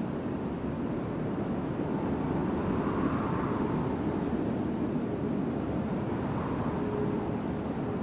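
Mountain wind blowing steadily as a low rushing noise, swelling in gusts about three seconds in and again near the end, with a faint whistling tone near the end.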